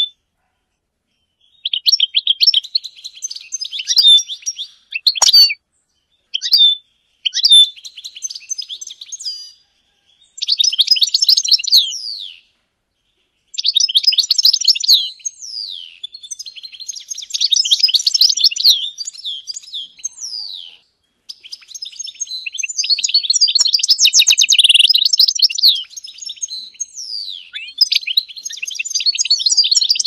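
European goldfinch singing: high-pitched, rapid twittering phrases and trills, broken by short pauses in the first half and running almost unbroken in the second half.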